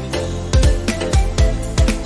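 Background music with a steady beat: a kick drum about four times a second under sustained pitched notes.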